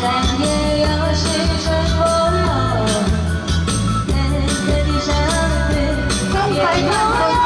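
A Mandarin pop song: a singer's voice carrying a melody over band accompaniment, with a steady beat and bass.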